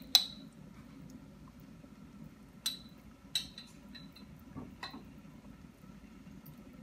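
A spoon clinking against a pot or dish: one sharp clink at the start, then four or five lighter clinks and taps spread through the middle, as crab paste is spooned in and knocked off the spoon.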